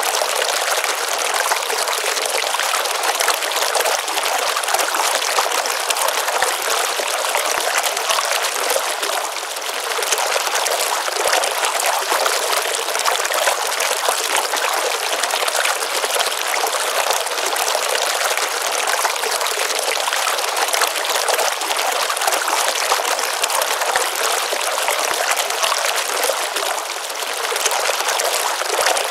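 A small pond stream's water running and splashing steadily, a bright even hiss with no low rumble. It eases slightly about ten seconds in and again near the end.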